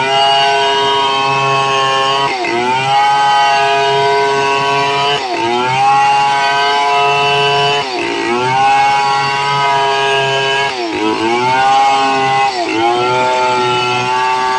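A home-built chainsaw modelled on the STIHL 070 running at high revs while rip-cutting lengthwise through medang timber. The engine note dips briefly and climbs back five times, roughly every 2 to 3 seconds.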